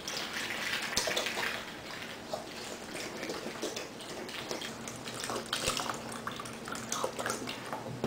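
Milk pouring in a steady stream from a plastic gallon jug into a bowl of cereal, splashing.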